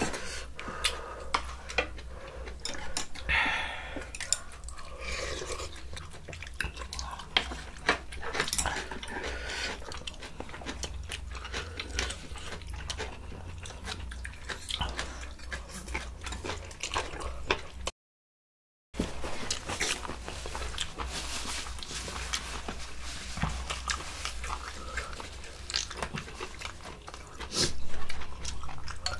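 Close-up eating sounds of spicy yukgaejang soup and side dishes: chewing, with frequent short clicks and clinks of utensils against the bowls. The sound cuts out completely for about a second midway.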